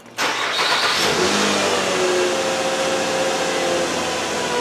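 A Nissan Quest's 3.5-litre V6 running steadily, now firing on all cylinders after the swapped coil connectors for cylinders one and three were put back in the right places.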